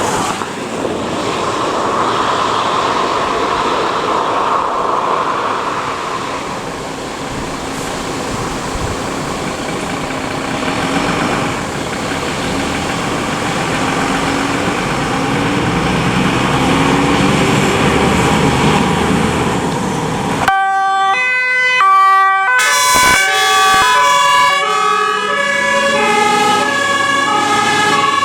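Fire engine driving with heavy engine and road noise, then a sudden change to a German two-tone siren (Martinshorn) alternating between its high and low notes. Near the end the tones of more than one horn overlap.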